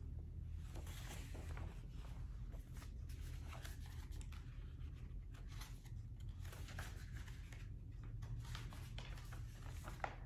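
Quiet room tone with a steady low hum, broken by faint, scattered rustling and soft clicks of small handling noises.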